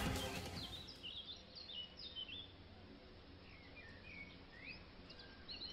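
A music cue fading out within the first second, leaving faint wild birdsong: repeated short chirps and whistled notes from several birds over a low outdoor hush.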